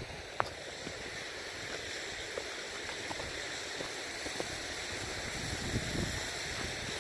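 Steady rush of running water, with a low wind rumble on the microphone and a single sharp click about half a second in.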